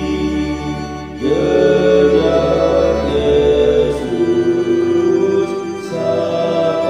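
Four-part (SATB) choir singing a hymn in Indonesian over organ accompaniment, holding long chords that change about a second in, again around four seconds, and near six seconds.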